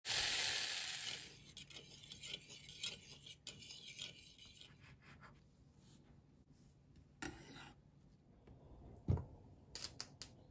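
Kitchen food-prep sounds: a loud hiss in the first second, then a knife rasping and scraping on slices of brown bread on a wooden cutting board, with a few knocks and a louder thud about nine seconds in.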